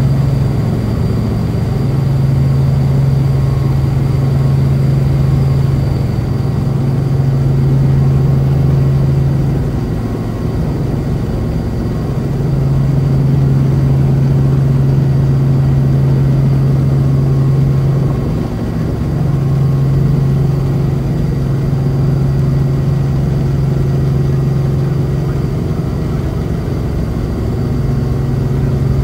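Helicopter running: a loud, steady drone with a strong low hum that dips briefly a few times, and a thin steady high whine above it.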